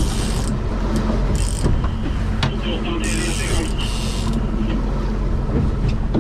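Boat engine running steadily, with fishing reels ratcheting in four short, high-pitched bursts.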